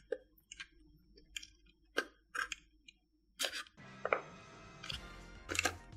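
Paper crackling and rustling in short, sharp bursts as fingers pinch and press creases into a folded paper mask, several times. Background music comes in about two-thirds of the way through.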